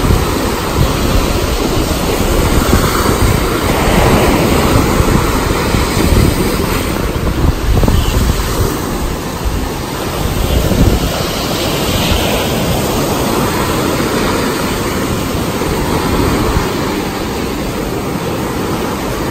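Small waves breaking and washing up a sandy shore, the surf swelling every few seconds, with wind buffeting the microphone as a low rumble.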